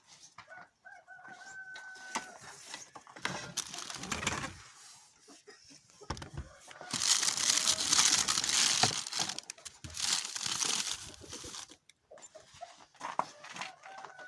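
Rustling and crinkling handling noise, loudest for about four seconds in the middle, with scattered clicks and a short steady-pitched call about a second in.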